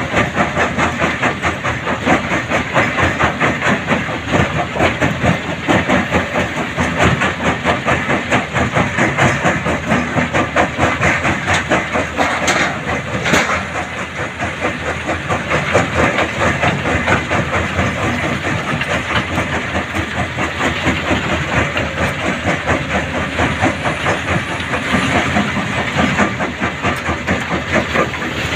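Mobile stone crusher and Kobelco excavator working together: a loud, continuous mechanical rattle with an even, fast pulsing beat and a hiss, as rock is fed in and crushed.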